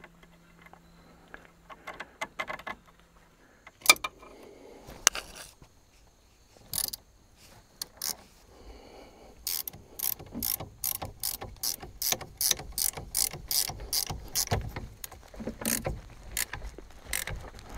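Hand ratchet wrench clicking as a bolt is run in: a few scattered clicks and knocks, then about halfway through a steady series of ratchet strokes at two or three clicks a second.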